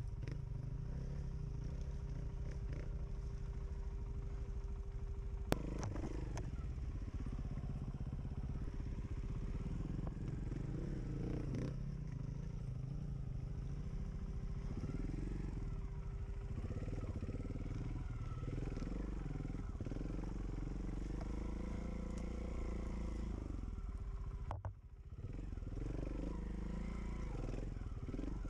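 Enduro dirt bike engine running over rough ground, revving up and down as the throttle is worked. There is a sharp knock about five seconds in, and the engine note briefly drops away near the end before picking up again.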